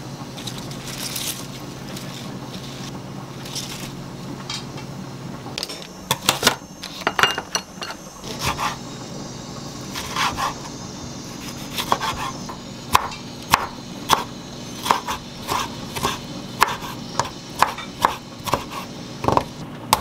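Chef's knife cutting tomatoes on a wooden cutting board, each cut ending in a sharp knock on the board, about one to two a second through the second half. Before that, soft rustling of a bunch of fresh spinach being handled, over a low steady hum.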